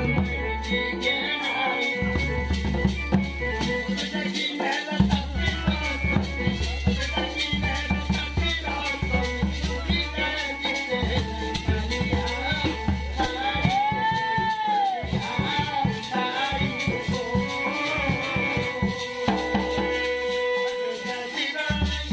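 Live folk dance music: a double-headed dhol beaten in a fast, dense rhythm under a continuous jingling metal rattle, with a heavy low end from the amplification.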